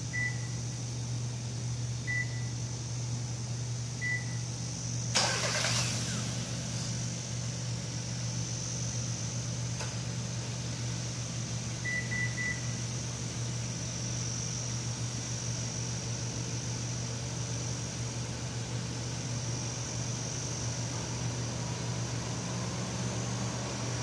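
Three short beeps two seconds apart, then a Hyundai Kona's engine cranks and catches about five seconds in, started by an aftermarket remote starter, and runs on steadily. A quick triple beep comes about twelve seconds in.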